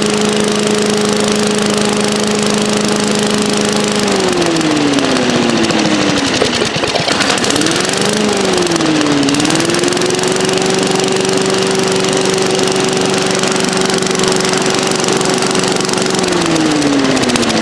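5-horsepower engine of a walk-behind leaf blower running on its first start after being unseized and fitted with a replacement carburetor, with a stick held in as a makeshift choke. Its speed sags about four seconds in, wavers and picks back up, runs steadily, then drops again near the end.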